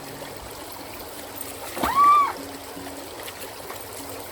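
River water flowing steadily, with one loud high call about two seconds in that rises and then falls in pitch over about half a second.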